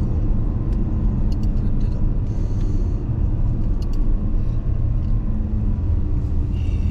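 Steady low road rumble of a car heard from inside the cabin while driving: tyre and engine noise at a constant speed, with a few faint ticks.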